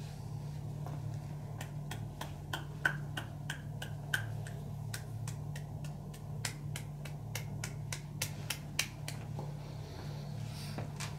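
A quick run of sharp snaps from the masseur's hands, about three to four a second, starting a second or two in and stopping near the end, over a steady low hum.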